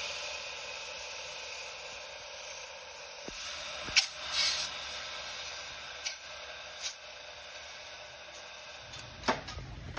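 Compressed air hissing steadily through a brazed aluminum AC line during a pre-leak test, with a few sharp clicks.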